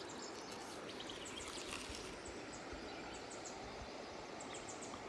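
Quiet outdoor ambience: a steady background hiss with faint, short bird chirps now and then.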